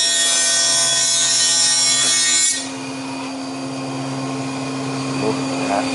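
Carbatec CTJ-381X 15-inch thickness planer with a helical cutterhead planing a merbau board: a loud, dense cutting whine that cuts off sharply about two and a half seconds in as the board clears the knives. After that the planer keeps running unloaded with a steady hum.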